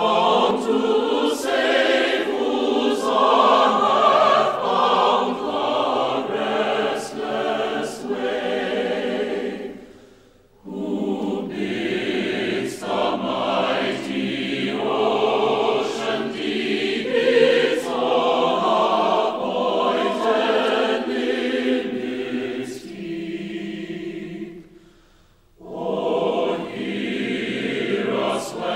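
A choir singing, the music dropping away briefly twice between phrases, about ten seconds in and again near the end.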